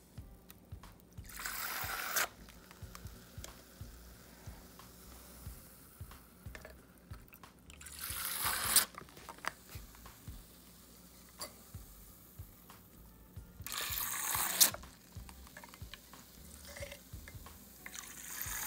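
A plastic syringe squirting water into a styrofoam cup in four short hissing bursts a few seconds apart, each swelling over about a second and cutting off sharply as the syringe empties. It is old, murky water being drained out of a snow globe.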